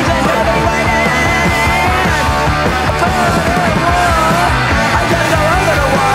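Loud rock song with a singing voice, playing continuously as a soundtrack.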